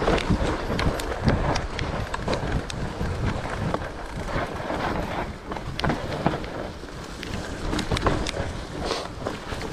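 Mountain bike riding a rough trail: tyres rumbling over the ground, with frequent sharp clicks and knocks as the bike rattles over bumps, and wind on the microphone.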